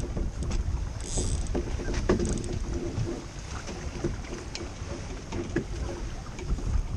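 Wind buffeting the microphone and water rushing along the hull of a small keelboat sailing in chop, with scattered knocks and clicks from the rigging and deck fittings and a brief hiss of spray about a second in.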